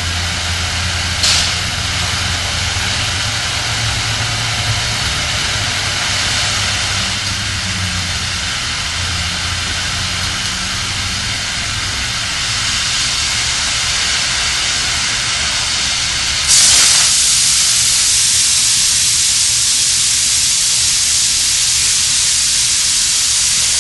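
Oxy-fuel cutting torch on a Bug-O Beam Bug III carriage hissing steadily as it cuts up a steel beam flange, over a low hum for the first half. About two-thirds of the way in, the hiss suddenly turns louder and brighter and stays so.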